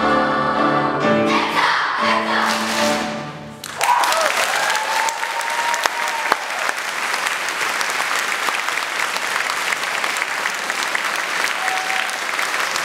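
Children's treble choir holding the final chord of the song, which ends about three and a half seconds in. Then an audience breaks into steady applause.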